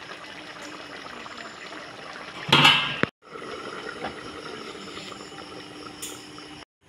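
Stew simmering in a wok with a steady bubbling hiss. About two and a half seconds in, a loud half-second clatter as a glass pot lid goes onto the pan, and a light click near the end.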